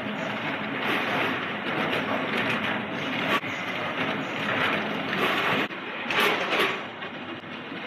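Packaging-line machinery running: an incline conveyor and multihead weigher handling small bagged snacks, which slide and clatter on stainless steel. A steady mechanical rattle swells and fades, and breaks off abruptly twice.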